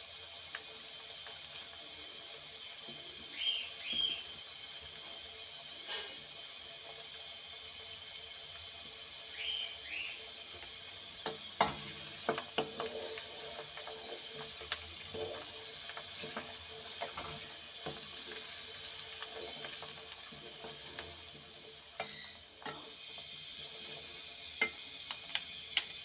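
Sliced onions sizzling steadily in hot oil in an aluminium kadai. Partway through, a wooden spoon stirs them, knocking and scraping against the pan in a run of sharp clicks.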